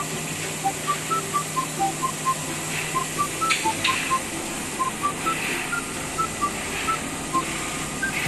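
Background music: a tune of short, high beeping notes at changing pitches, about three a second, over a steady hum.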